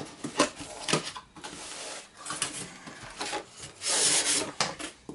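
Foam packing insert being slid out of a cardboard box: foam scraping and rubbing against cardboard, with a couple of sharp knocks early on and the longest, loudest rub about four seconds in.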